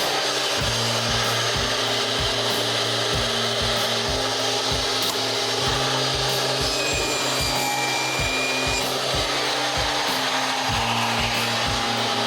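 Table saw running and cutting through a vinyl floor plank, a steady rasping saw noise. Background music with a steady beat, about two thumps a second, plays under it.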